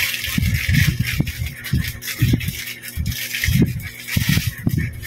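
Plastic storage-cabinet parts rattling and knocking as they are handled and snapped together, in a string of irregular knocks.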